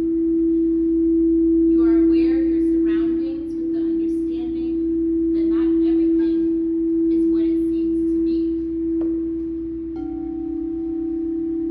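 Frosted quartz crystal singing bowls played with a mallet: one bowl holds a steady, pure low ringing tone, and about ten seconds in another bowl is sounded, adding a second, slightly lower tone beside it.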